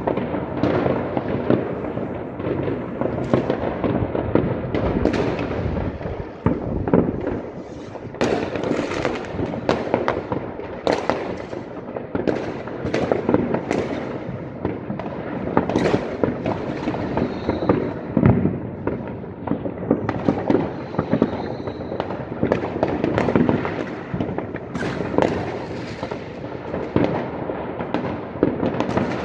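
New Year's Eve fireworks across a city: many rockets and firecrackers going off at once, a continuous rumbling crackle broken by frequent sharp bangs.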